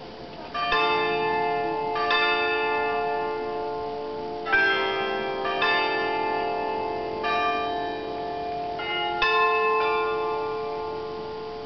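Several church bells of different pitch pealing together, their strokes landing unevenly about every one to two seconds, each hanging on in a long ring. The peal fades away near the end.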